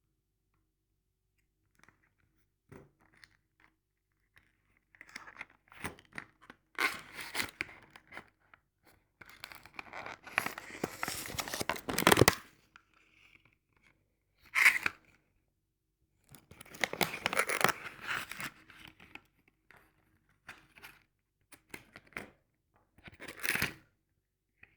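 Irregular bursts of tearing and crinkling, several seconds each, with short quiet gaps between them. The loudest burst comes about halfway through.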